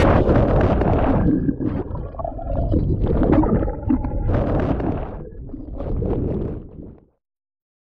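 Churning sea water rumbling and gurgling around an action camera held underwater, heard muffled through the submerged camera. The sound cuts off abruptly about seven seconds in.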